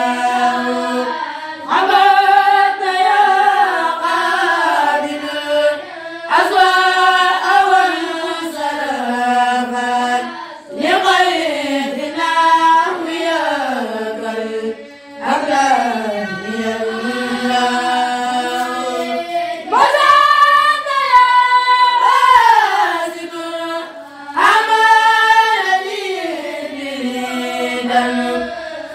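A kourel of boys chanting religious verses together without instruments. The chant runs in long, sliding melodic phrases of about four to five seconds each, with short breaths between them.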